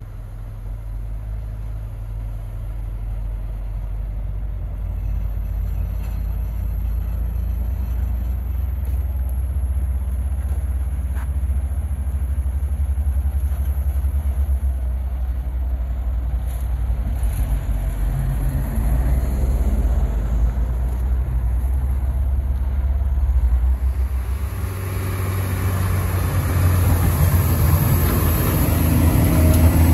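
Heavy diesel engines of snow-removal machines, a motor grader and a loader with a snow blower, running with a deep steady rumble that grows louder as they come closer. About three-quarters of the way in, a harsher, fuller noise joins as the loader-mounted snow blower draws near.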